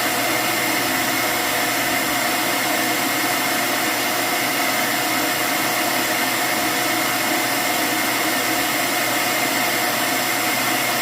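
Cuckoo Power Clone AI all-in-one station's auto-empty suction motor running steadily, pulling the dust out of the robot vacuum's bin. It makes a loud, even rush with a steady high whine.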